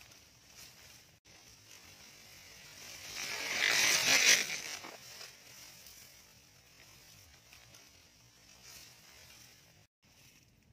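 A rushing swish that swells and fades over about two seconds: a dove-trapping clap net being pulled and flung over the field.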